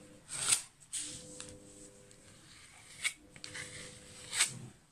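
Small metal scraper dragged across a plastic stencil on a wooden board, spreading paste through it in about four short scraping strokes. The loudest stroke comes about half a second in, and another near the end.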